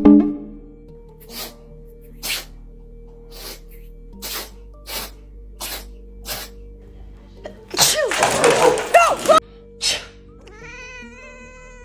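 A cat sneezing over and over: about seven short, sharp sneezes come a little under a second apart. A louder, longer burst of mixed noise follows, then one more sneeze, over quiet background music.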